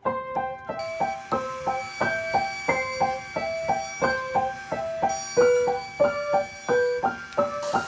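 Background music: a light piano or keyboard tune of short, evenly paced notes.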